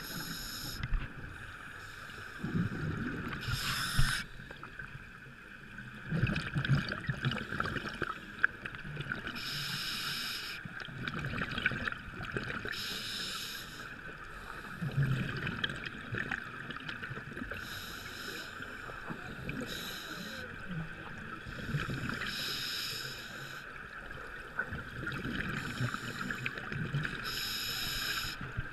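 Scuba regulator breathing heard underwater: a short hissing inhale every three to four seconds, alternating with bubbling exhales, over a steady background hiss.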